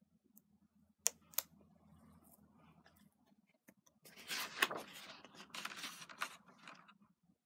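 Hardcover picture book being handled and opened: two sharp clicks about a second in, then a light rustle. From about four seconds in comes louder swishing and rustling of paper with a few sharp ticks as the endpaper is turned to the title page.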